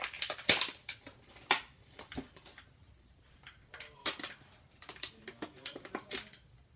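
Clear plastic blister packaging crinkling and crackling as it is handled and pulled open, in irregular crackles. Loudest in the first second and a half, then a lull, then another run of crackles from about four seconds in until just after six seconds.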